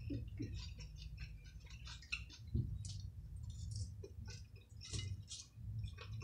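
Close-up eating sounds: chewing with many small, irregular clicks and light taps of forks on plates, over a low steady hum.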